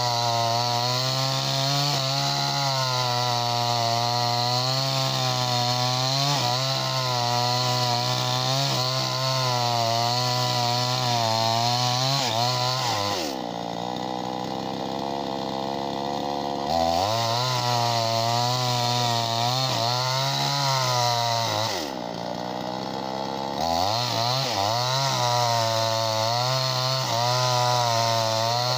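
A 58cc two-stroke chainsaw with a 20-inch bar running at high revs through wood, its pitch wavering as the chain takes the load. Twice, about halfway through and again near the end, the engine drops back sharply to a lower speed and then revs up again.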